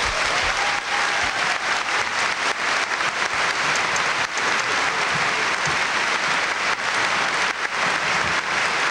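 Theatre audience applauding steadily: a dense wash of many hands clapping.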